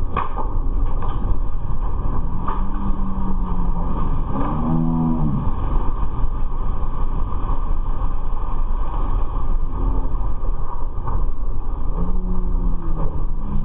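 Game-fishing boat's engines running steadily under way, with wind and water wash on the microphone. A few brief shouts break through about a third of the way in and again near the end.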